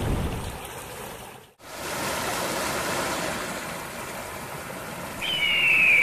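Steady rushing of a waterfall and stream, with a sudden break about a second and a half in before it picks up again. Near the end a loud, high whistling tone that falls slightly in pitch comes in over the water.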